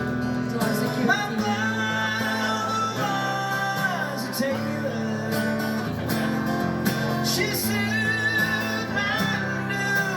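Music: a song with guitar accompaniment and a sung melody, in a country style.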